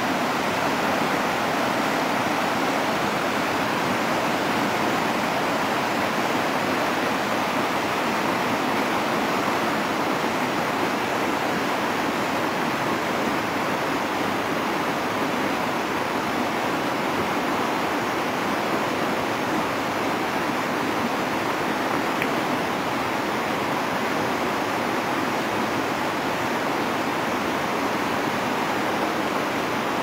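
Fast white-water river rushing over a stony bed: a steady, unbroken rushing of water.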